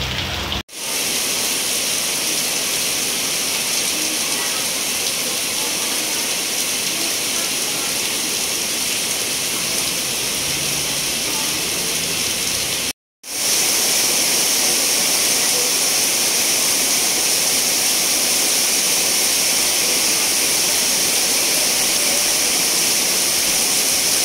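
Heavy rain pouring down in a steady, loud hiss. It is broken twice by brief cuts to silence, just after the start and about halfway through.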